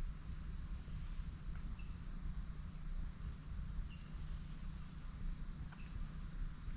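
Steady high-pitched drone of an insect chorus in summer woods, with a short chirping call repeating about every two seconds and a low rumble underneath.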